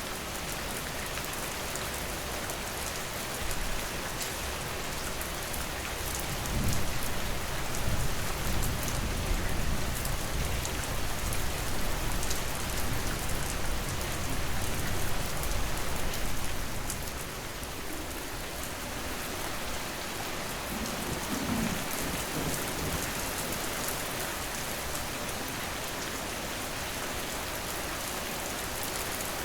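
Steady rain falling, with a long, deep rumble of thunder from about six seconds in that fades out around seventeen seconds, and a shorter, fainter rumble a few seconds later.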